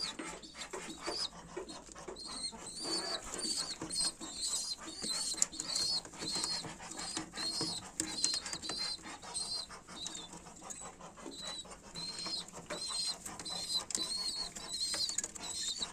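Pigeon squabs giving a steady stream of short, high squeaks, several a second, over scuffling and shuffling, as they beg to be fed by a parent pigeon.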